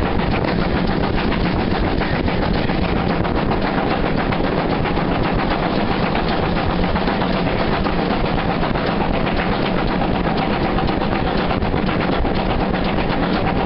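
Steam locomotive working hard at speed, its exhaust beats coming fast and even over the running noise of the train, heard from an open carriage window.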